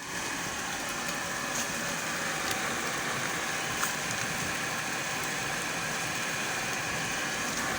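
Shimizu water pump running steadily on trial, its motor hum mixed with the rush of water.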